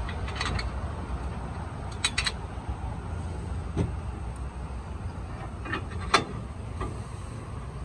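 Scattered metal clicks and knocks of a steel trailer step being handled and bolted onto its step tube, the sharpest knock about six seconds in, over a steady low rumble.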